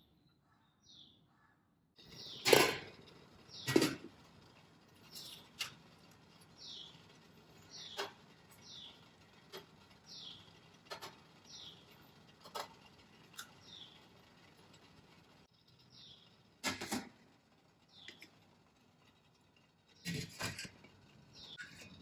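A bird calling repeatedly: short high chirps that sweep downward, about one a second. Several louder sharp clatters break in, the biggest about two and a half seconds in, with others a second later and near the end.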